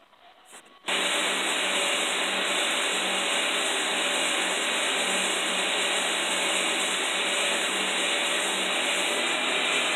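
Belt grinder grinding a hardened skinning-knife blade on its sanding belt: a steady, loud grinding hiss over a low motor hum, starting abruptly about a second in.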